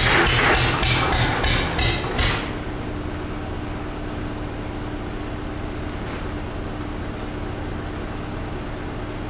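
GM 1-71 single-cylinder two-stroke diesel turning over in loud, even beats, about three a second, on a cold start without ether. The beats stop about two seconds in, leaving a quieter steady hum.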